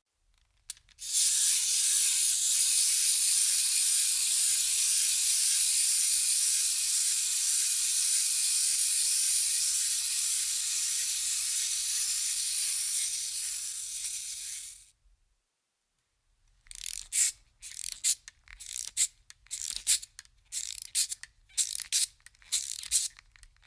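Aerosol spray can spraying in one long steady hiss of about fourteen seconds that stops abruptly, then a run of irregular crackling rustles, like paper being handled or crumpled.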